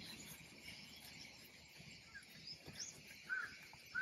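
Faint, steady chorus of insects in the grove, with a few short chirps in the second half.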